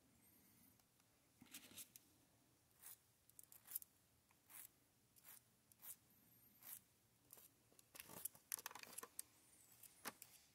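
Faint, irregular scratching and rubbing strokes as a small AR-15 part is worked by hand to clear off fire debris so it will slide freely in the lower receiver; the strokes come closer together from about eight seconds in.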